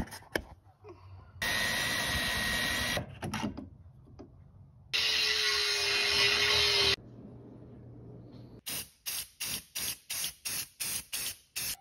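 A power drill runs for about a second and a half, drilling new holes in the scavenge pump's housing. An angle grinder then grinds down the housing's cooling fins for about two seconds, with a steady tone under the grinding noise. Near the end come about a dozen short, evenly spaced bursts of noise, about four a second.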